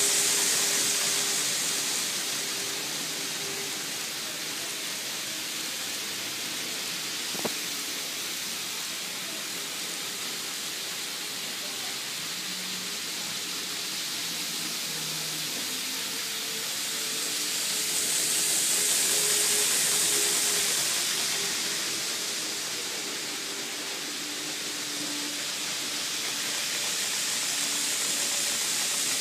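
Model railway freight train's wagons rolling along the track: a steady rushing hiss of many small wheels on rail that swells twice as cars pass closest, with one sharp click about seven seconds in.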